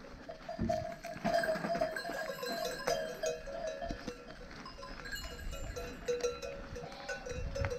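Many livestock bells clanking and ringing at once, as a grazing flock moves, with several tones overlapping and jangling irregularly.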